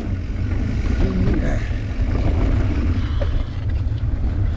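Steady low rumble of wind buffeting a bike-mounted action camera's microphone, mixed with fat bicycle tyres rolling over a dirt singletrack.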